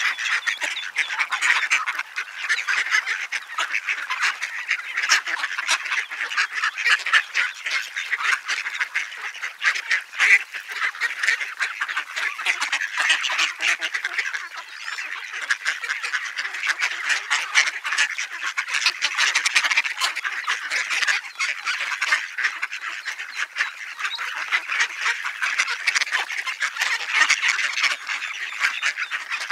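A flock of mallards calling all at once: many overlapping quacks and chatter with no let-up.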